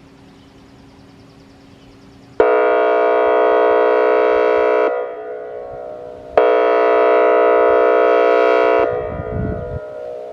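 Whelen WS-2802 electronic outdoor warning siren sounding two loud steady blasts of about two and a half seconds each, a rich unchanging chord rather than a rising and falling wail, each cutting in suddenly and the second starting about four seconds after the first, each trailing off in echo.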